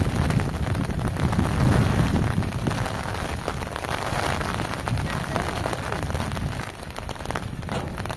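Steady rain falling on wet ground and hard surfaces, with a low wind rumble on the microphone that eases in the middle and builds again near the end.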